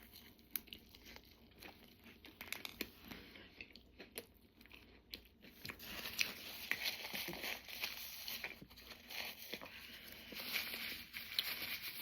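Biting into and chewing a McDonald's Chicken Big Mac close to the microphone: soft crunching of the breaded chicken patties and wet mouth clicks, getting louder and denser about halfway through.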